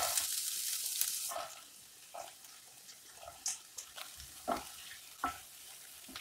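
Finely chopped onion tipped into hot oil in a pan, sizzling loudly at first and dying down after about two seconds. A spatula then stirs it, with a few short scrapes and knocks against the pan.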